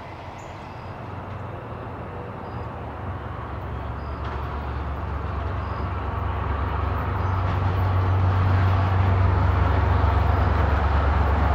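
Diesel-hauled passenger train approaching: the locomotive's low engine drone and the rumble of the train grow steadily louder as it nears.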